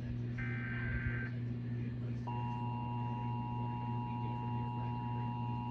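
Emergency Alert System test over broadcast radio. It opens with the last of the SAME header's short, warbling data bursts, about a second long. About two seconds in, the steady two-tone EAS attention signal begins and holds, over a constant low hum.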